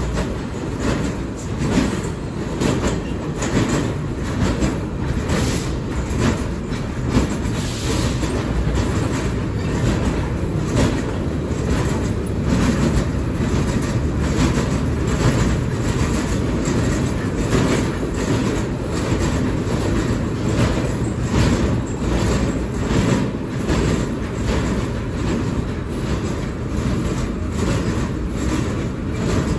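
Vintage R1/9 New York City subway car running at speed, heard from inside the car: a steady rumble with frequent irregular clicks as the wheels cross rail joints.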